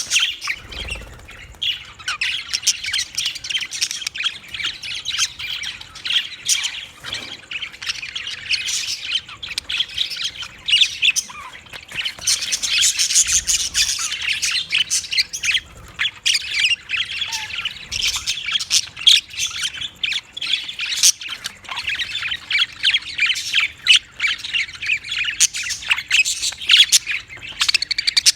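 Budgerigars chattering and squawking without pause, a dense stream of short, high, scratchy calls and chirps.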